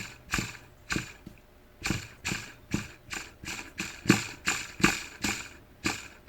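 Regular sharp clicking, about two to three clicks a second with a short pause about a second in, from the freshly cleaned idle air control valve being worked by hand now that it moves freely.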